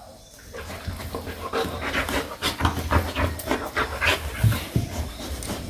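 A Rottweiler panting while it mouths a plush toy: a run of quick, irregular breaths that starts about a second in.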